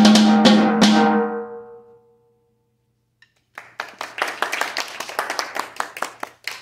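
Final strokes of a snare drum solo, the last hits about a second in ringing out and dying away. After a short silence, brief applause.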